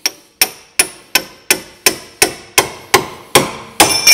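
Hammer blows driving a ball-joint splitter into a seized tapered ball joint on a Volvo V50's front suspension: a steady run of about eleven metal strikes, roughly three a second, getting harder. The last, loudest blow near the end rings out sharply.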